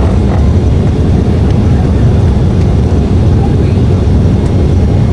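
Airliner during takeoff: a loud, steady low rumble of engines and rushing air.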